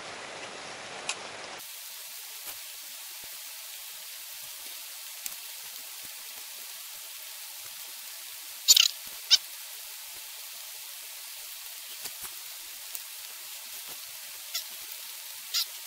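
A steady hiss, with chopsticks clinking on the metal oden pot and cup: two sharp clinks about halfway through and a few fainter clicks later.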